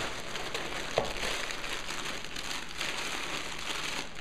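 Packaging crinkling and rustling as it is handled and opened, with one sharp click about a second in.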